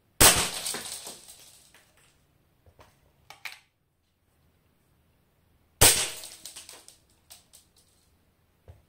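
Two sharp cracks about five and a half seconds apart as 0.43 g BBs from a Snow Wolf M24 airsoft sniper rifle at 700 fps strike the lamp's base. Each crack is followed by shards breaking away and clinking onto the floor for a second or so, with a few single clinks in between.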